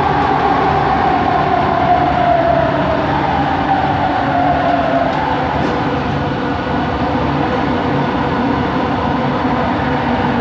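Bombardier Innovia ART 200 metro train running, heard from inside the car: steady rumble and rail noise, with the linear-induction-motor whine falling in pitch over the first five seconds and then fading as the train slows.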